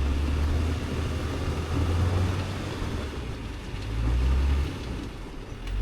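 Tank 500 SUV's engine running with a low hum, its revs rising and falling a few times, louder about two seconds in and again about four seconds in, then easing off near the end.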